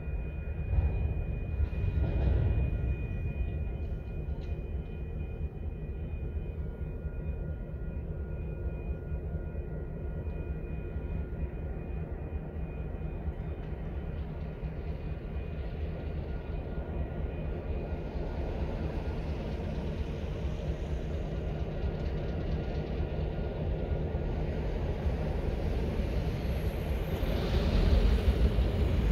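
Distant CN diesel freight locomotive running steadily, a low rumble with a steady hum. A car passes close by near the end, the loudest part.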